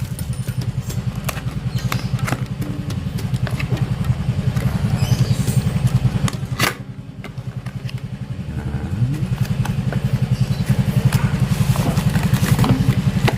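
A small motorcycle engine idling steadily, with the clicks and clatter of a package being opened by hand. About seven seconds in there is a sharp click, the engine sound drops for a moment, then it comes back with a short rise in pitch.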